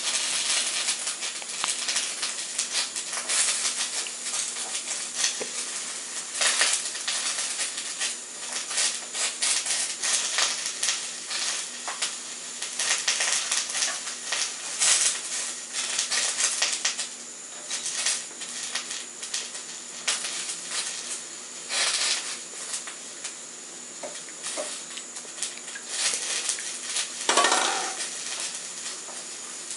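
Small stainless steel pot clinking and knocking irregularly as a baby handles it on a tiled floor, with repeated light metallic taps and scrapes. There is a short vocal sound near the end, over a steady low hum.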